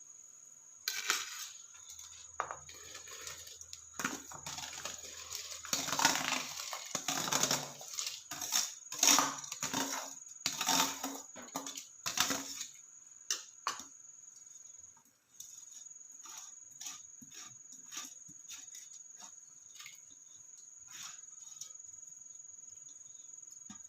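Soaked rice being tipped and scraped from its container into a pot of boiling water: a run of splashing, rustling and knocking against the vessel that thins to scattered light taps in the second half. A faint steady high-pitched tone runs underneath.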